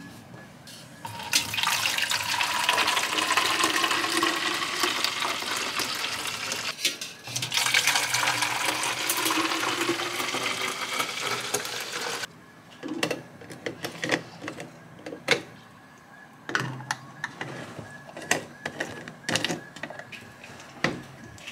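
Liquid poured from a stainless steel pot into two plastic water bottles, one after the other, each pour rising in pitch as the bottle fills. Then a run of clicks and knocks as the bottles are handled and their plastic lids fitted.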